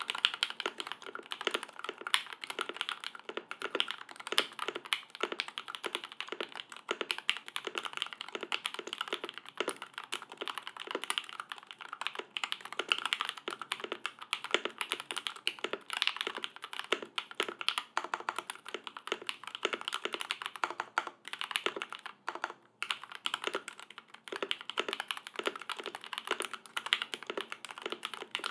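Continuous fast typing on an OTD 356 Mini custom mechanical keyboard with lubed vintage Cherry MX Black linear switches on an aluminium plate and GMK keycaps: a dense run of keystroke clacks, with two brief pauses about three quarters of the way through.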